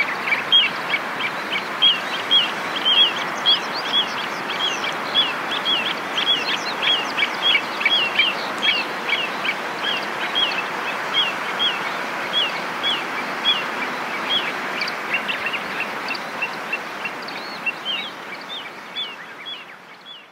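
Little ringed plover calling repeatedly, short falling notes a little under two a second, over a steady rushing background noise. It fades out near the end.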